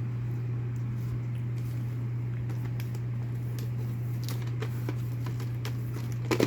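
A steady low electrical hum, with faint scattered clicks and taps from handling plastic VHS cassettes and their cases. A few sharper clicks come near the end.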